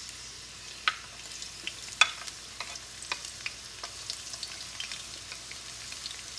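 Ginger-garlic paste sizzling and crackling as it goes into hot oil in a wok, a steady hiss full of small pops, with a few sharp clicks, the loudest about one and two seconds in.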